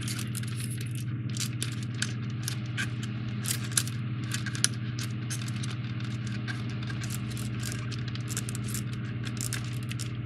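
Many small clicks, taps and rustles of hands handling and pressing a sail piece into the tabs of a 3D puzzle model ship, over a steady low hum.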